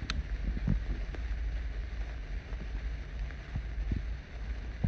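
Several sparklers stuck in the grass fizzing with a steady hiss, over a low rumble and a few soft thumps.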